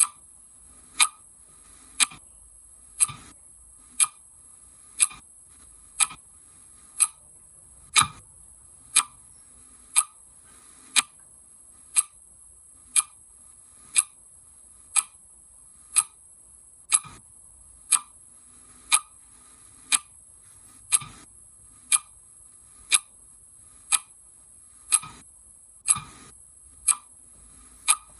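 Clock ticking steadily, one sharp tick each second, over a faint steady high hiss.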